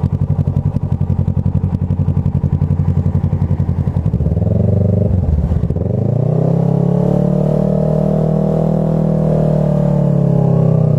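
Kawasaki ER6F's 649 cc parallel-twin engine heard from on the bike, pulsing steadily at low revs for about four seconds. It then changes note and rises to a steady, higher-pitched run as the bike accelerates along the road.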